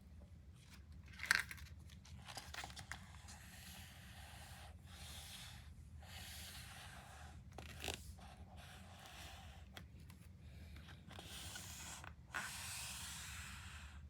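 Plastic candy packaging being torn open and crinkled by hand, in a run of rustling bursts with a few sharp snaps. The loudest snap comes about a second in, and the rustling grows louder near the end.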